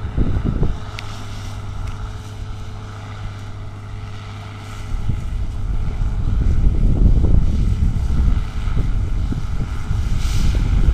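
Farm machinery engines running steadily, from the tractor carrying the microphone and the Bizon combine harvester working ahead, with wind rumbling on the microphone. The low rumble grows louder about five seconds in.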